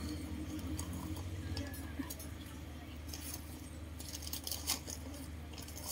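Plastic nursery bag crinkling and rustling in short, irregular bursts as a potted rose bush is handled in it, over a steady low hum.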